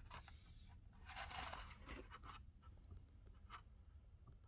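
Near silence with a faint rustling scrape about a second in and a few light clicks after it: a small diecast toy car and its packaging being handled.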